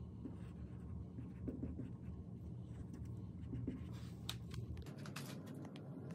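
Dry-erase marker scratching and squeaking on a whiteboard as letters are written, over a low steady hum that cuts off about five seconds in.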